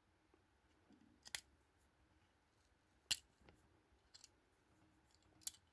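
Faint sharp clicks, three of them about two seconds apart, as the rubber packaging supports are worked off a die-cast toy car. Near silence between them.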